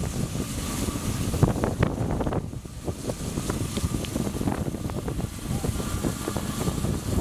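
Narrow-gauge steam locomotive rolling slowly past, its running gear and wheels giving off irregular clanks and knocks over a low rumble, with wind buffeting the microphone.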